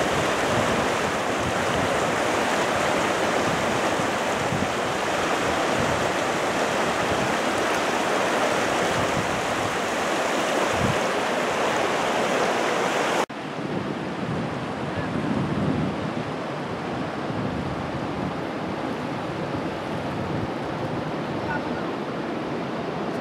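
Waterfall water rushing in a steady, loud hiss. About halfway through it cuts abruptly to a quieter, duller rush of water.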